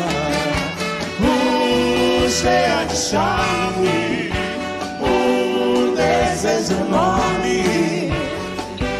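Live big band playing an up-tempo Brazilian pop arrangement: a horn section of trumpets, trombones and saxophones over drum kit, bass and congas.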